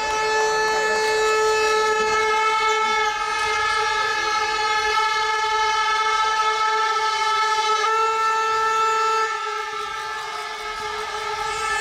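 A loud, steady horn-like drone, one held pitch with many overtones, sounding without a break and easing slightly near the end.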